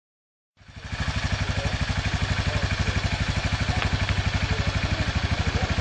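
ATV engine running steadily at idle, an even rapid pulse of about a dozen beats a second, starting about half a second in.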